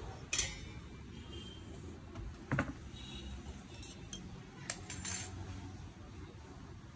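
Metal and stone parts of a wet grinder being handled: clinks and knocks as the conical stone roller assembly is lifted out of the stainless steel drum and set down. A sharp clink about half a second in, a heavier knock at about two and a half seconds, and several lighter clicks with a short metallic ring between four and five seconds.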